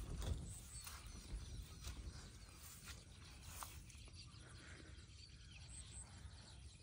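Quiet riverside ambience with a few faint, short bird chirps, plus light knocks and rustles from a cast net being drawn in by its rope.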